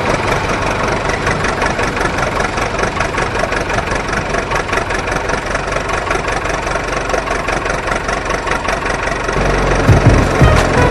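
A diesel tractor engine idling with an even, rapid knocking beat. Near the end, a heavier, deeper pulsing sound comes in.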